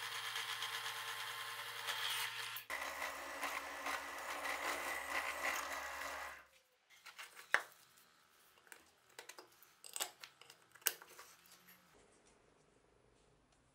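Bench drill press running steadily as its bit bores through a chestnut-wood handle scale clamped to a cleaver's tang. It stops about six and a half seconds in, followed by scattered light clicks and knocks as the drilled wooden scales and steel cleaver are handled.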